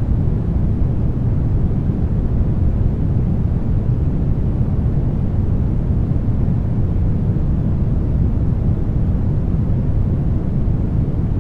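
Steady brown noise: an even, deep rumble with most of its weight in the low end, unchanging throughout.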